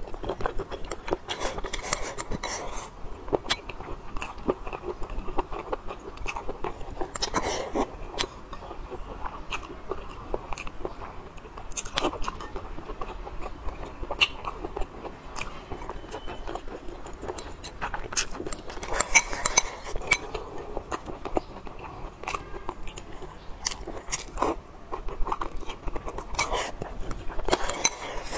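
Close-miked eating sounds: chewing and biting of braised pork belly and white rice, with many small sharp clicks throughout.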